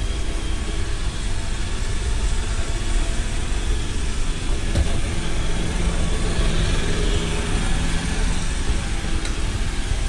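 iRobot Roomba robot vacuum running on a tile floor: a steady whir of its suction motor and brushes, with a low hum that comes in for a few seconds midway.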